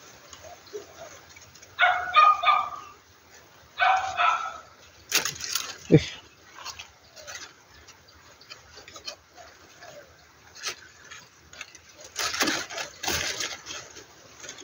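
A dog yelping in two short bursts of high yips about two seconds apart, followed by a sharp knock and a rustling stretch near the end.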